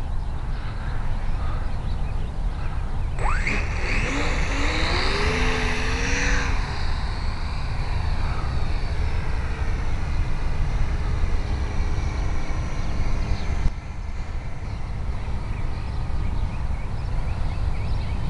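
Electric RC plane's geared Himax brushless motor and 10x7 propeller spooling up to full power for takeoff about three seconds in. It is loudest for a few seconds, then fainter and wavering as the plane climbs away. Wind rumbles on the microphone throughout.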